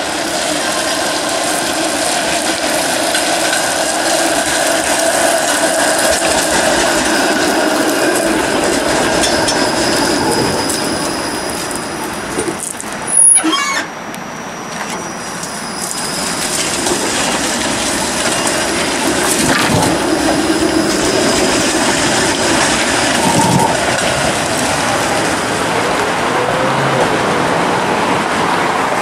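TTC Flexity Outlook streetcar running past, a steady rumble with held electric whining tones. There is one short, sharp, loud knock about 13 seconds in.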